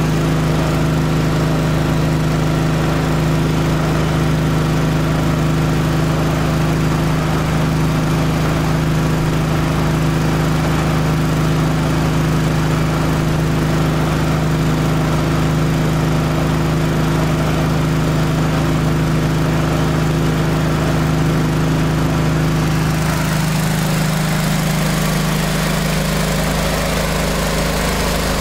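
Kohler 30 hp V-twin engine of a hot-water pressure washer running steadily, with nearly 7,000 hours on it. Its tone shifts slightly about three-quarters of the way through.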